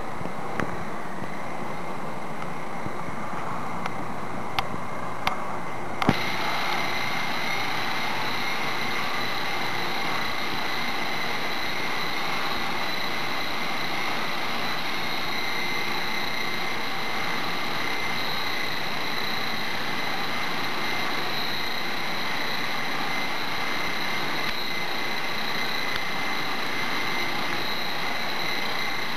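Small electric coaxial-rotor RC helicopter hovering: its motors and twin rotors whir steadily with a high-pitched whine. A few light clicks sound in the first seconds, and about six seconds in the sound abruptly turns brighter and a little louder, then holds steady.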